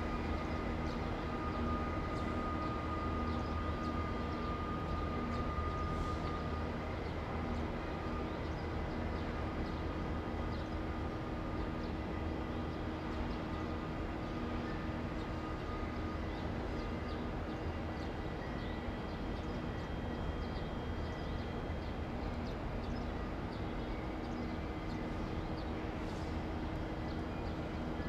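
KiHa 20 diesel railcar pulling away into the distance: a steady low engine drone, with a high whine that fades out about halfway through.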